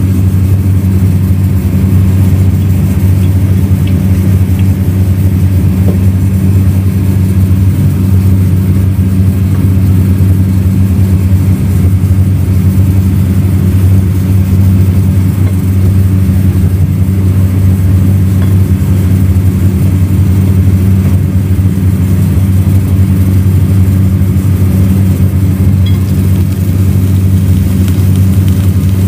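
A steady, loud, low machine hum that runs on without a break.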